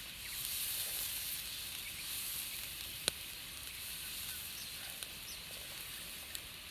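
Melted butter sizzling in a hot frying pan, a steady hiss, with one sharp click about three seconds in.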